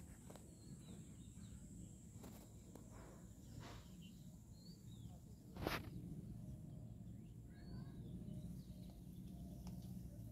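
Faint outdoor ambience: a low steady rumble with scattered faint bird chirps, and one sharp click a little past halfway.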